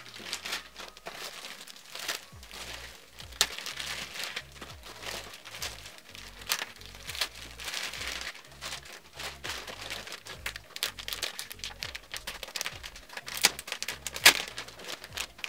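Clear plastic packaging bags crinkling and crackling as hair bundles are handled and pulled out of them, with sharper crackles near the end. Quiet background music runs underneath from about two seconds in.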